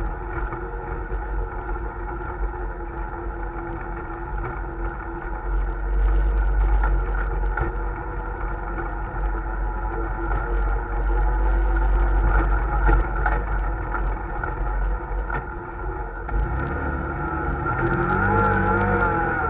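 CFMOTO ZForce 800EX side-by-side's V-twin engine running under way, a steady drone over a deep low rumble. Near the end the engine pitch wavers up and down as the throttle changes.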